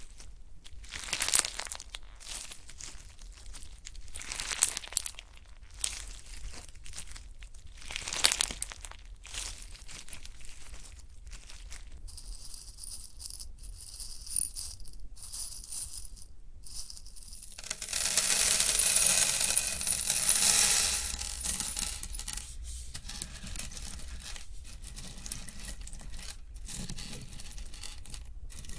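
Slime being squeezed and pressed by hand, making crinkly, crackling squishes with a few sharper pops. There is a louder, denser spell of crackling about two-thirds of the way through.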